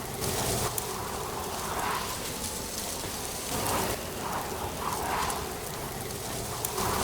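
Autumn wind rustling dry leaves, a steady hiss with soft gusting swells every second or so and a few faint ticks.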